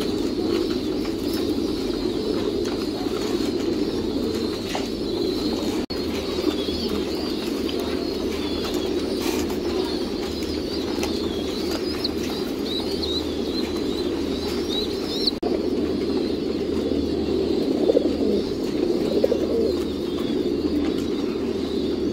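Many caged domestic pigeons cooing at once in a dense, steady chorus, with thin high chirps over it.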